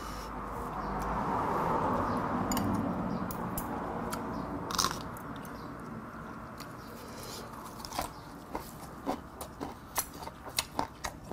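Close-miked sounds of a leaf wrap of raw mudskipper sashimi being eaten: a soft rustling while the leaf is folded in the first few seconds, then chewing with many short, crisp crunching clicks in the last few seconds.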